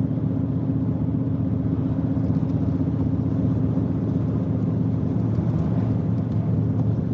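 Steady road noise heard inside a moving car's cabin: a constant low rumble from the engine and tyres on wet pavement.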